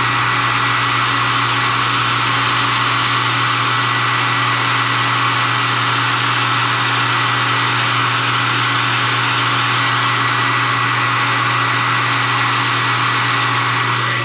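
Electric hot-air blower running steadily, a rush of air with a thin high motor whine, shutting off near the end: heat-setting a fresh airbrushed coat of color-shift paint on a lure body.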